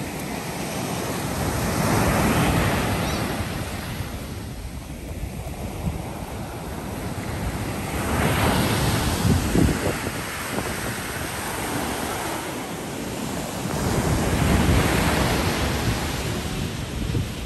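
Ocean surf breaking and washing up a sandy beach, swelling three times about six seconds apart, with wind rumbling on the microphone.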